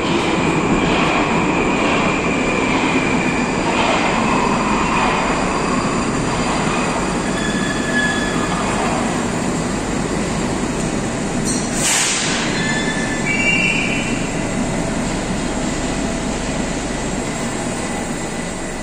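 Moskva-2020 metro train pulling into the station and braking to a stop, with wheel squeal on the rails and a brief burst of hiss about twelve seconds in.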